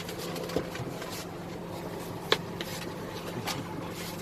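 Idling bus engine with a steady low hum inside the bus. Over it come scuffling and a few sharp knocks, the loudest about two seconds in, as a limp man is dragged along the floor to the door.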